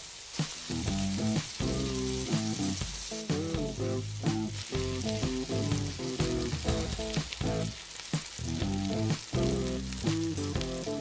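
Battered squash strips deep-frying in hot oil: a steady sizzle with many small crackles as the tempura batter cooks. Background music with changing notes plays underneath.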